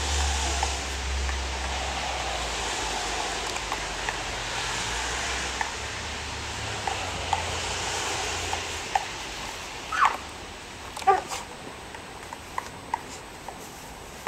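A steady rushing noise with low rumble for the first eight seconds or so, then a border collie giving two short yelps about ten and eleven seconds in, among scattered small clicks.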